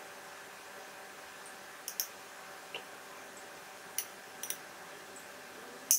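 Metal spoon tapping and clicking against a ceramic plate, a few scattered light clicks with a sharper one near the end, as sticky boiled dumplings are pushed apart.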